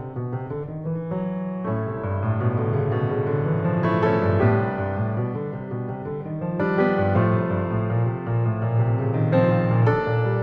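Acoustic piano playing a jazz passage in successive chords with held low bass notes.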